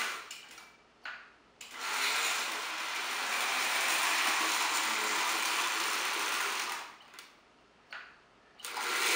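Lionel 2025 steam locomotive running on three-rail O-gauge track, its motor and gearing whirring with the wheels rattling over the rails. The sound cuts out twice, about a second in and near the end, each time with one short burst before it starts again, as the DC power is switched off and on to step the locomotive's E-unit reversing switch.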